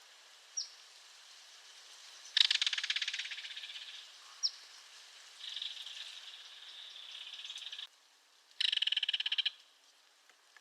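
Belted kingfisher giving its dry, rattling call: a loud rapid rattle about two seconds in that fades over a second and a half, a softer, steadier rattle that cuts off abruptly, and another loud rattle of about a second near the end. Two brief high chirps sound, one early and one mid-way.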